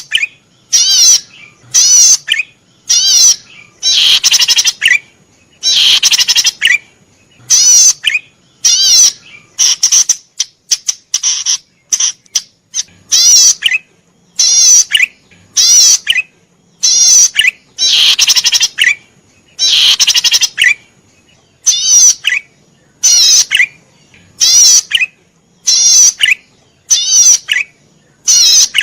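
Cici padi merah, a small cisticola, singing vigorously: short buzzy, rapidly trilled calls repeated about once a second, with a few longer phrases among them.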